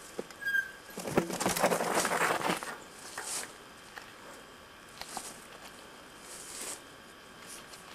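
Mountain bike descending a steep dirt trail: knobby tyres crunching and scraping over loose earth and roots, with a few knocks from the bike. The noise is loudest about one to three seconds in, then falls to fainter scrapes as the bike passes.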